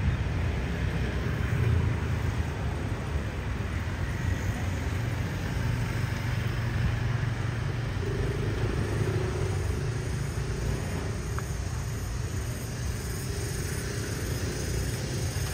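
Outdoor street ambience: a steady low rumble of road traffic, with a faint steady hum coming in about halfway through.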